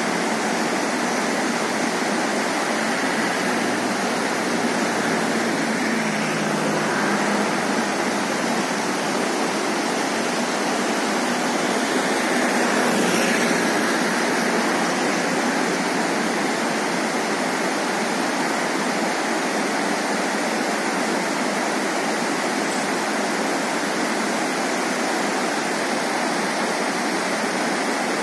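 Mountain river rushing over rocks: a steady, unbroken water noise.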